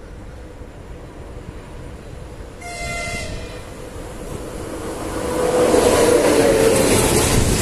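ČD Cargo electric locomotive sounding a short horn blast about three seconds in, then rumbling past with its train of tank wagons. The rumble grows louder and stays loud from about five and a half seconds in.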